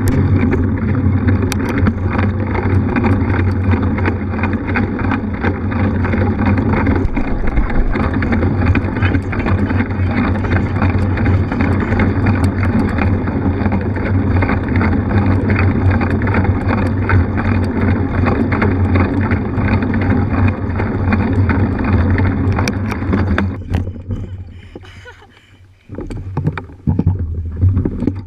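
Steady rushing noise of a mountain bike ridden fast on a wet off-road trail: wind buffeting the camera microphone together with tyre noise. It dies away after about 24 seconds, with a few bumps and knocks near the end.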